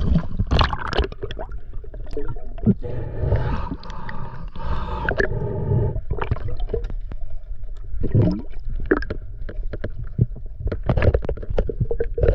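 Water gurgling and sloshing as hands handle a freshly speared snook, with scattered short knocks and scrapes.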